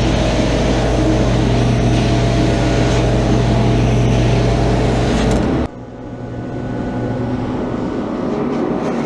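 Advance ET 700 portable carpet extractor running, a steady suction hiss over a motor hum. About five and a half seconds in the hiss and low hum cut off suddenly, leaving a quieter machine sound that slowly builds back up.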